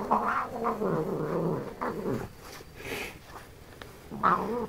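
Domestic cat giving a long, low, wavering growling cry for about two seconds, then a shorter one near the end, while worked up by a catnip-filled cushion.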